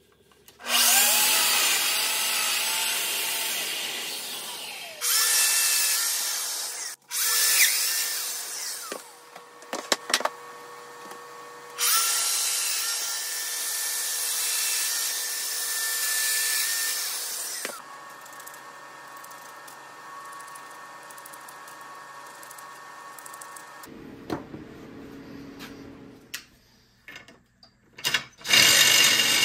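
Festool Domino joiner cutting mortises into the edges of solid birch tread boards, several plunge cuts one after another, with its motor running between them. It spins down after about 18 seconds, and a quieter steady running sound carries on. Near the end a cordless drill-driver runs in a few short bursts.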